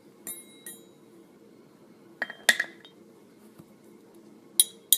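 Light, sharp clinks of small hard objects, each with a short high ring, over a faint steady hum. There are a couple near the start, two louder ones about two and a half seconds in, and another pair near the end.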